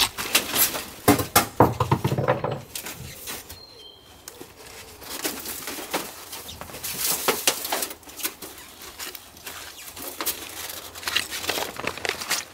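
A metal woodstove flue pipe being pulled up out of a cabin roof and handled: a run of knocks, scrapes and rattles, busiest in the first three seconds, then irregular.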